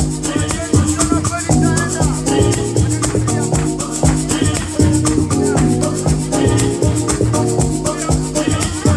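Loud dance music with a fast, even rattling shaker rhythm over plucked string lines and a steady bass.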